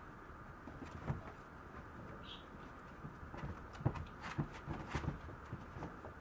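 Light scattered taps and clicks, bunched about four to five seconds in, as a Maltese puppy moves about and noses at a plastic dish on its playpen floor.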